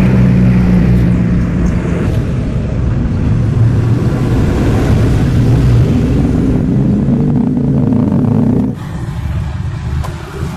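A motor vehicle's engine running steadily with a low rumble, dropping in level about nine seconds in.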